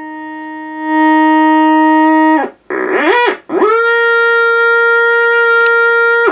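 Heterodyne beat note from a solid-state-converted BC-221 frequency meter, heard from its earphone jack through a small audio amplifier: a tone rich in overtones that holds at a low pitch, swoops up and down as the tuning dial is turned about two and a half seconds in, then holds at a higher pitch.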